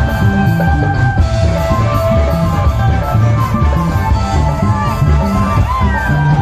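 Loud stage music over a PA sound system, with a heavy, repeating bass beat under held melody notes.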